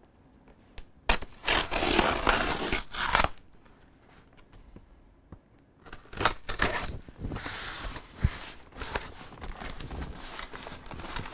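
Packing tape on a cardboard shipping box being slit and torn open, in two bouts of scratchy ripping, about a second in and again from about six seconds on.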